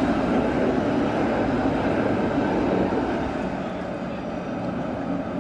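A tram running past with a steady rumble, loudest over the first three seconds and then easing off.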